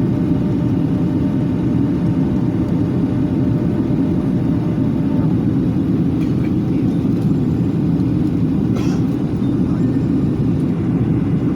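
Airliner cabin noise during the descent to landing: a steady, loud, low rumble of engines and airflow.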